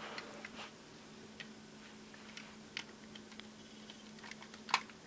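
Plastic parts of a Power Rangers Samurai Megazord toy clicking and tapping as a hand handles it, fitting pieces on. The clicks are faint and scattered, with the sharpest one near the end.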